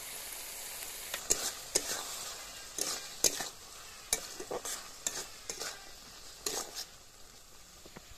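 Long flat metal spatula scraping and knocking against a metal kadai as the fish and brinjal curry is stirred, over a steady sizzle of frying. The scrapes come in irregular strokes from about a second in and thin out near the end.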